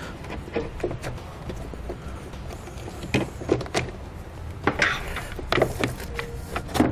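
A new pleated engine air filter being slid and pushed into the plastic intake airbox of a 2018 Subaru Forester: scattered plastic clicks, taps and a brief scrape about five seconds in, over a steady low hum.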